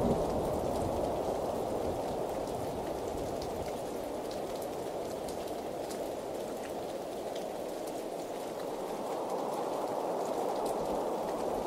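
Rain falling steadily: a dense, even hiss with scattered sharp ticks of individual drops.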